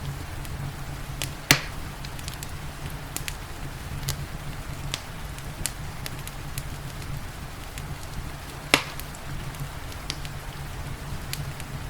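Wood fire crackling in a fireplace, scattered small crackles with two sharp loud pops, about a second and a half in and near the nine-second mark, over a steady rain hiss and a low rumble.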